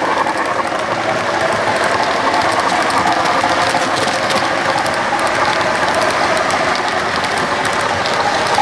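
Model railway passenger cars rolling past on the track: a steady rumble with rapid light clicking of the wheels over the rail joints.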